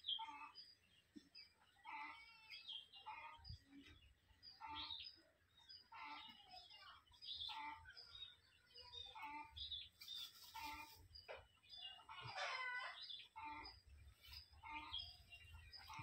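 Faint, short fowl calls repeated about once or twice a second, with a longer run of calls a little after twelve seconds. Sand rustles and scrapes briefly around ten seconds and again near the end, as red junglefowl dust-bathe.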